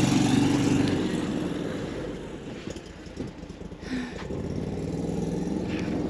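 Argo amphibious ATV's engine running, dropping away about halfway through and building up again toward the end.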